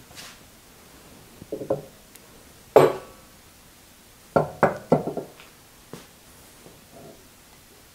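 Metal knocks and clinks of tools and parts being handled on a metal drill press table: a couple of light knocks, then the loudest, with a short metallic ring, about three seconds in, and a quick run of knocks a little before five seconds.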